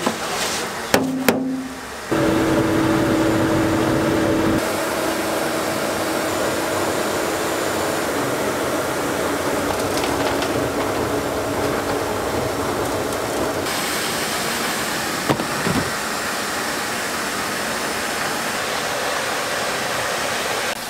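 A machine running steadily with a low hum and a held tone over a wash of noise, starting abruptly about two seconds in after a few knocks, with the tone dropping away a few seconds later.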